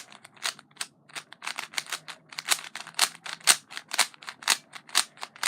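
A 3x3 plastic speed cube being turned quickly in the hands, its layers clicking and clacking in a fast, uneven run of about five or six turns a second.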